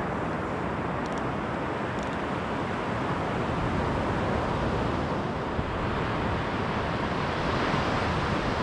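Sea surf breaking on a sandy beach: a steady wash of noise that swells slightly near the end, with wind on the microphone.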